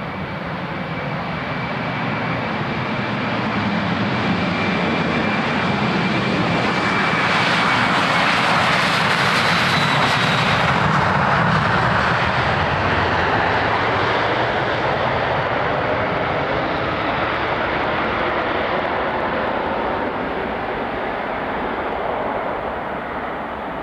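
Copa Airlines Boeing 737 jet engines at takeoff power: a steady roar that swells to its loudest about ten seconds in, with a thin high whine over it, then slowly fades as the airliner passes and climbs away.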